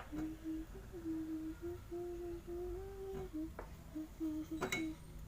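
A person humming a slow tune, held mostly around one note with small steps up and down, with a few light clicks; the sharpest click comes near the end.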